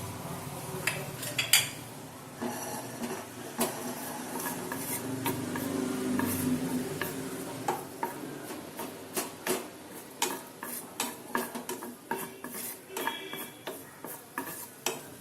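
A spoon stirring chopped ginger and garlic in a pan of hot coconut oil: repeated clinks and scrapes against the pan over a light sizzle of frying.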